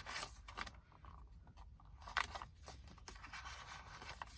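Paper pages of a handmade journal being handled and turned: soft rustles and light taps, one cluster at the start and another about two seconds in.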